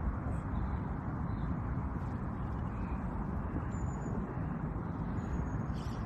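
Steady low rumble and hiss of outdoor background noise, with two faint short high whistles about four and five seconds in.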